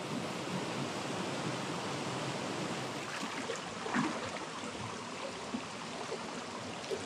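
Mountain stream water running over rocks: a steady rushing noise, with one brief louder sound about four seconds in.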